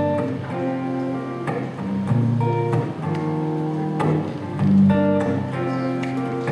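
Acoustic guitar playing, with plucked chords and strong low bass notes.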